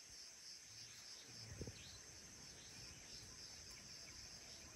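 Faint evening chorus of crickets: a steady, high, pulsing trill. A soft low thump comes about a second and a half in.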